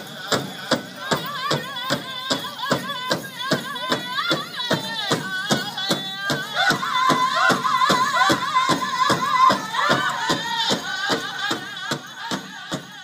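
Powwow drum and singers: a steady, even drumbeat with high, wavering singing over it, and a long held note in the middle.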